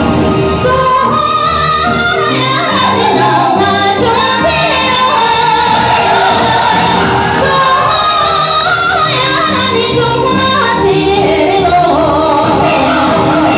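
A song sung into a microphone over a musical accompaniment, amplified through the hall's sound system, with a melodic vocal line held and gliding over steady backing music.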